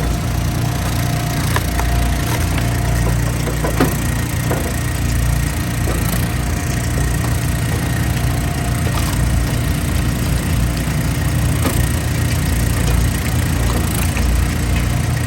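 Engine-driven hydraulic log splitter running steadily while logs are split, with occasional sharp cracks of wood splitting apart.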